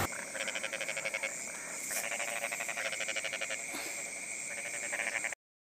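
Frogs calling: fast pulsed trills in bursts of about a second, one after another, which cut off suddenly near the end.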